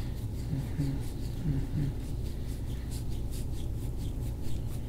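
Fingers kneading and rubbing the skin and muscle at the base of the skull in a deep tissue neck massage: soft, faint scratchy rubbing, heard over a steady low room hum and a brief low murmur of voices in the first couple of seconds.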